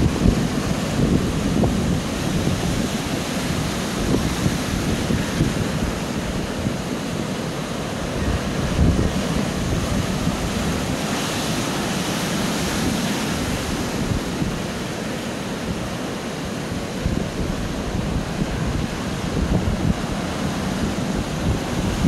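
Sea surf breaking and washing over a rocky shore in a steady wash of noise, with wind buffeting the microphone in low gusts.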